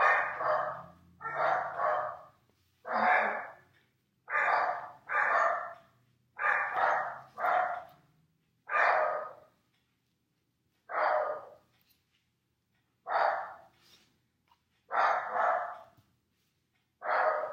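A dog barking over and over, in single barks and quick pairs of barks every second or two.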